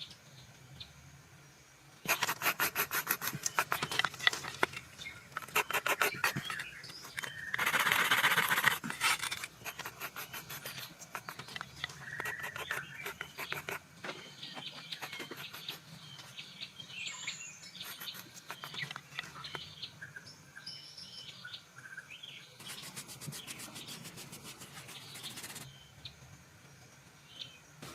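Several bursts of quick, repeated rubbing or scraping strokes, each lasting a few seconds, with birds chirping in the background.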